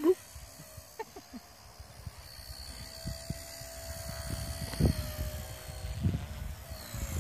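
Blade Nano S2 micro RC helicopter's electric motors and rotors whining in flight, the pitch drifting up and down as it is flown, with wind buffeting the microphone in low gusts. A short sharp sound comes right at the start.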